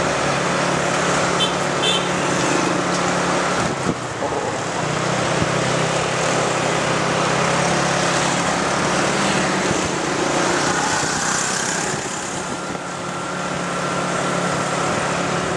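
Motorbike engine running steadily while riding through town traffic, under a constant rush of wind and road noise. The engine note breaks off briefly about four seconds in.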